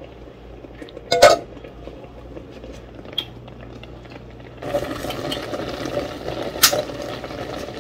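A metal spoon and lid clink against a stainless steel saucepan, sharply about a second in. From about halfway through, a pot of blended pepper and onion sauce bubbles steadily on the stove, with another clink as the glass lid is handled.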